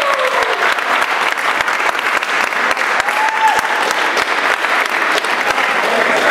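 An audience applauding steadily, dense continuous clapping.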